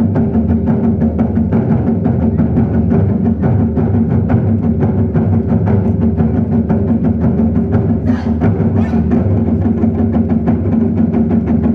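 Ensemble of large drums played live in a fast, continuous roll of dense strokes over a heavy low boom, with a couple of brighter, sharper accents about two-thirds of the way through.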